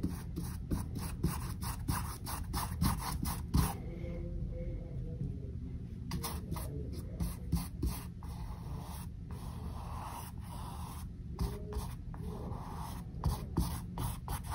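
Large paintbrush scrubbing acrylic paint onto a canvas in many quick back-and-forth strokes, a scratchy rubbing, while laying a second coat of background colour.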